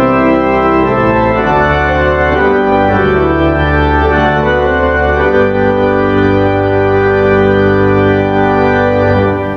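Organ playing a slow succession of sustained chords, ending on a long held final chord that is released near the end.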